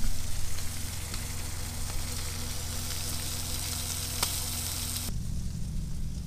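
Salmon fillets frying in a coconut oil and ghee mixture in a nonstick pan, a steady crackling sizzle that stops suddenly about five seconds in. A low steady hum runs underneath throughout.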